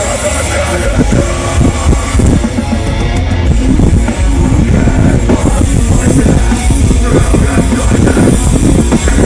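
Live metalcore band playing loud through a festival PA, with fast drums and heavy distorted guitars.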